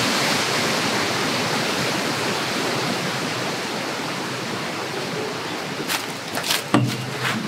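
Wind rushing steadily through the leafy tree canopy. About six seconds in, a few short knocks and rustles come in as the tent is handled.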